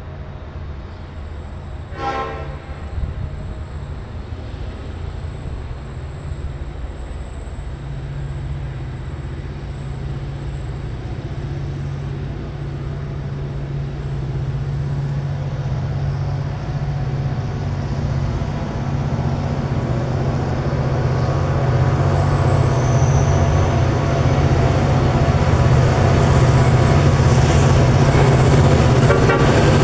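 Diesel-electric locomotives, a vintage C-class and X-class leading two SCT units, approach on a freight train. Their low engine drone grows steadily louder. A short horn note sounds about two seconds in.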